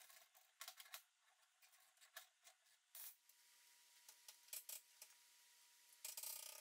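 Faint, irregular metallic clicks and light scraping as a rusty front axle shaft and U-joint assembly is handled and seated in a C-frame U-joint press, with a denser scrape near the end.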